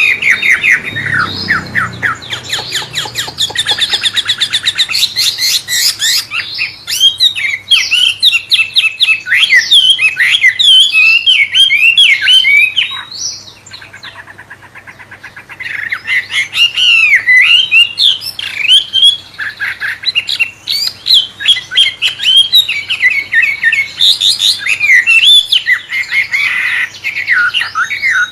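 Wambe songbird singing a loud, varied, shama-like song of rapid whistled notes and quick downward sweeps, broken by a brief softer stretch about halfway through.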